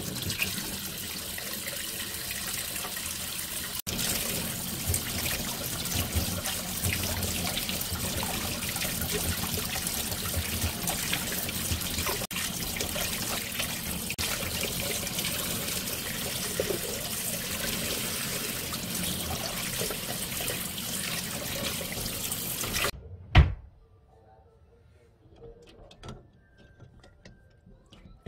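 Kitchen faucet running steadily, the water splashing over hands and eggs in a stainless steel sink. The water cuts off suddenly near the end with one loud knock. After that come only faint rubbing and small clicks as the eggs are handled.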